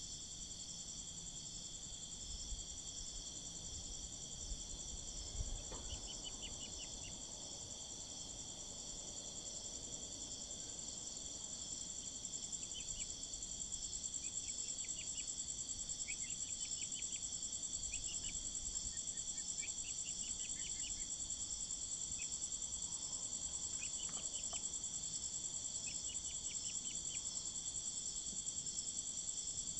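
A steady, high-pitched chirring insect chorus, like crickets, with soft short peeps from young Brahma chickens breaking in several times.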